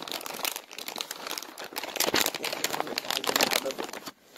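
Plastic bags crinkling and rustling as they are handled, in an irregular run of crackles with a short lull near the end.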